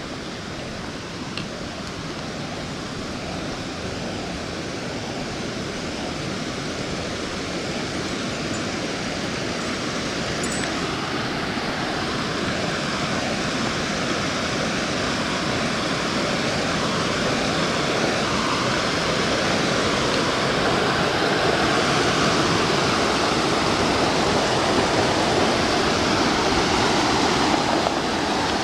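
Mountain creek rushing over rocks: a steady water rush that grows steadily louder as it is approached.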